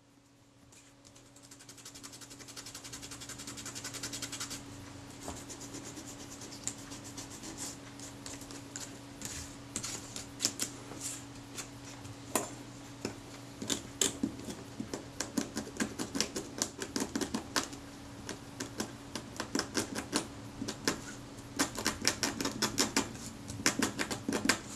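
Many quick scratching strokes of a pointed steel tool scraping dried adhesive and green corrosion off the back of a leatherette camera covering.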